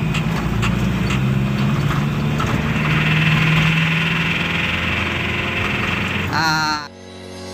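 Mitsubishi L300 engine heard from inside the cab, pulling in third gear with a rough, rattling noise from the engine. This rough running comes with a loss of power. Near the end it gives way to music.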